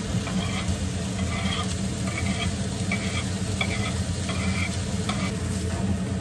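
A pot of kimchi stew cooking on the stove, sizzling and bubbling over a steady low hum, with short soft scrapes now and then.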